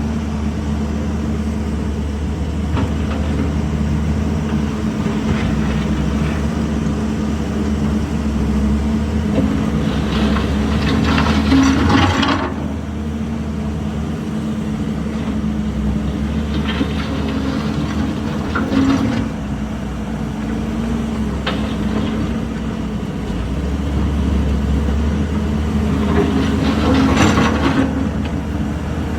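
Wheeled excavator's diesel engine running steadily, with a low drone. Louder noisy stretches come about ten, seventeen and twenty-seven seconds in.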